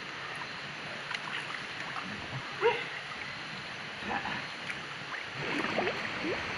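Muffled river water sloshing around a camera held at and below the surface, with a few short squeaky sweeps, the clearest about two and a half seconds in and near the end.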